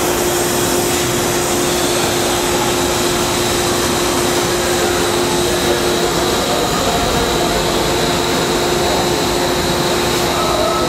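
Spindle of a Daewoo DMV 3016 vertical machining center running at speed under an MDI command: a steady whine over a mechanical hum, with a higher whine coming in about two seconds in.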